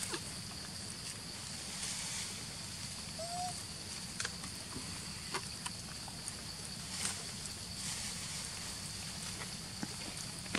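Outdoor ambience of a steady, high insect drone, with scattered light rustles and ticks from monkeys moving through grass and dry leaves, and one short rising chirp about three seconds in.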